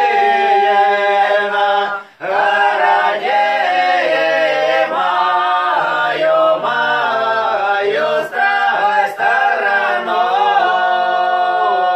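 Small mixed group of two women and two men singing a Semeiskie (Transbaikal Old Believer) folk song a cappella in several parts, with long held notes and a brief pause for breath about two seconds in.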